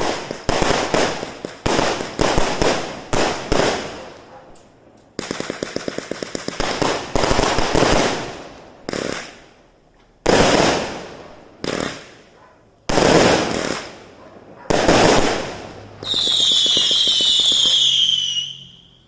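A multi-shot consumer fireworks cake firing: a quick series of bangs with crackling tails, a fast rattle of small shots about five seconds in, then heavier separate blasts a second or two apart. Near the end, a long high whistle slowly falls in pitch.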